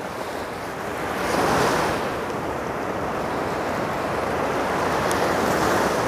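Sea surf: small waves breaking and washing onto a sandy shore, a steady rush that swells briefly about a second and a half in.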